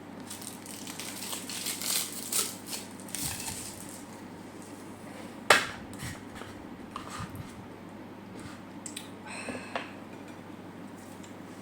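Close-miked eating and food-handling sounds: crispy fried food crunching and crackling in clusters, with one sharp, loud click about five and a half seconds in.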